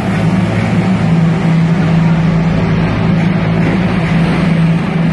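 Several motorcycles riding round inside a steel-lattice globe of death, their engines running loud and steady at an unchanging pitch.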